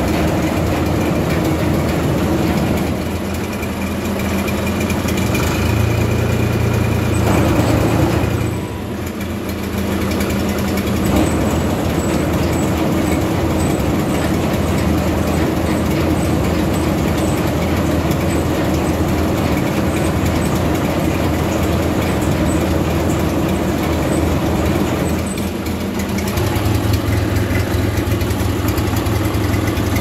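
John Deere 1520 tractor engine running with the PTO driving a Krone KR 125 round baler, whose rollers and chains turn with some squeaking, normal for a baler just started up. The engine note shifts a few times as the throttle is nudged.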